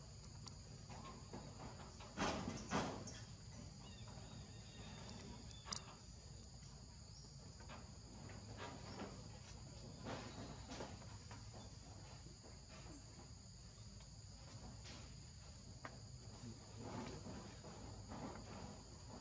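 Outdoor insect chorus: a steady, high-pitched shrill made of two constant tones, with faint scattered clicks and rustles. Two brief louder noises come about two seconds in, half a second apart.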